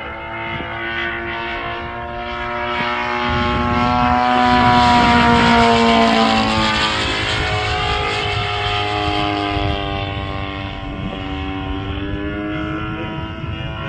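DLE-55 single-cylinder two-stroke gasoline engine of a large RC FW-190 model plane flying past. The engine drone swells, and its pitch drops as the plane passes about halfway through. The pitch climbs again near the end.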